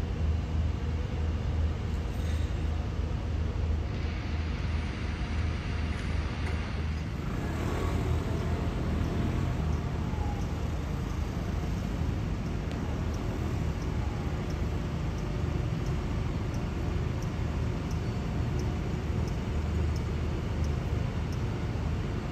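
Steady low engine rumble of an idling vehicle, with street traffic noise around it.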